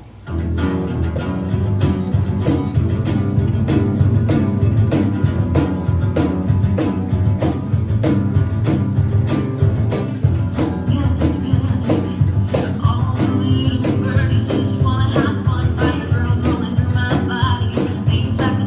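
Live band music starting: drums keep a steady beat under bass and guitar, and a higher melodic line joins about thirteen seconds in.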